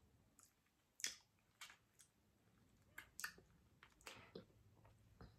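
Faint, wet mouth sounds of eating: a handful of short lip smacks and chewing clicks spread over a few seconds, as fingers are licked and food is chewed.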